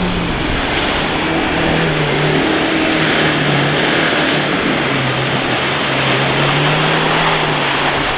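Chevrolet Niva's four-cylinder engine held at high revs under heavy load as the SUV ploughs through deep mud and water, with water and mud splashing. The engine note sags a little in pitch partway through, then holds.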